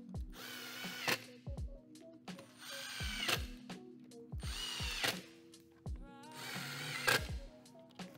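Cordless drill driving 35 mm screws into a cabinet side panel: four short runs of about a second each, the motor's whine dropping slightly as each screw pulls tight and ending in a sharp click.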